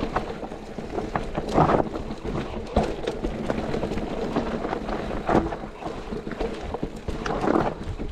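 Mountain bike being ridden over a rough dirt trail: tyres rolling over dirt and rocks, with the bike rattling and knocking irregularly over bumps and wind buffeting the action camera's microphone. Heavier clatters come about one and a half, three, five and a half and seven and a half seconds in.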